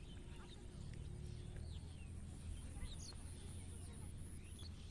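Small birds chirping with short, scattered high calls over a low steady rumble, with a faint high pulsing buzz in the background.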